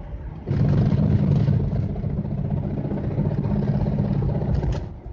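Mitsubishi Pajero III's Super Select transfer case making a loud racket under acceleration in four-wheel drive, starting suddenly about half a second in and easing off near the end: the sign of a badly stretched transfer-case drive chain. Engine and drivetrain noise of the moving vehicle run underneath.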